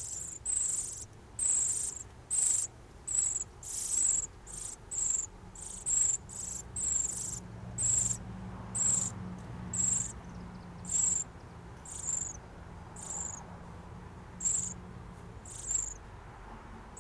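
Northern cardinal nestlings begging: high, thin calls repeated about twice a second, some sliding down in pitch at the end.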